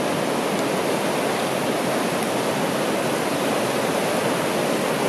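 Swollen mountain river rushing steadily over shallow gravel rapids, running high with meltwater.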